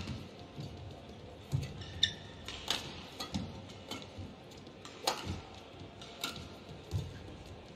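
Badminton rally: sharp, irregular strikes of rackets on the shuttlecock, roughly one a second, with short shoe squeaks on the court floor between some of them.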